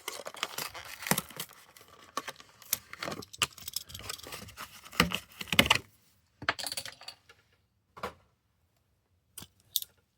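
Plastic blister packaging and a diecast toy car being handled and opened, a quick run of clicks and rattles that thins to a few separate clicks after about six seconds.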